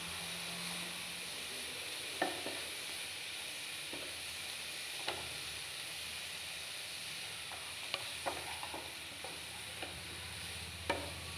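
Grated carrots sizzling gently in ghee in a non-stick kadai over a low flame, stirred with a wooden spatula, with a few knocks of the spatula against the pan.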